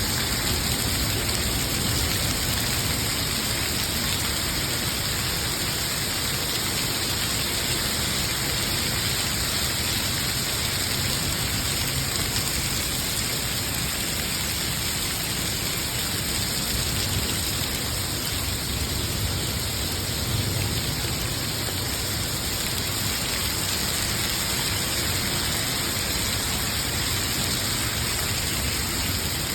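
Heavy rain pouring down steadily in a severe storm, a dense even hiss of rain on surfaces.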